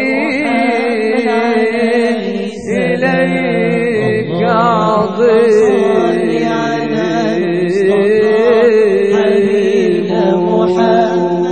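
Prophetic praise chanting (Moroccan madih): voices drawing out long, ornamented notes that waver and slide in pitch, with no words picked out.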